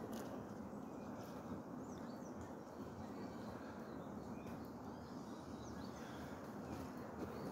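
Quiet outdoor ambience: a steady low background rumble with a few faint, short bird chirps scattered through it.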